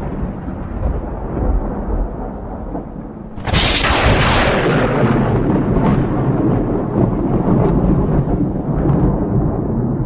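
Thunder: a low rumble dying away, then about a third of the way in a sudden sharp crack that goes over into a long rolling rumble.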